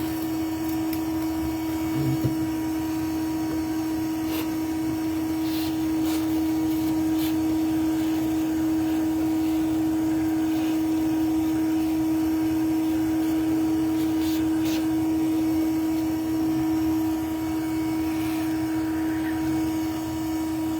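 A vacuum motor running with a steady, unchanging hum, with a few light clicks and knocks over it.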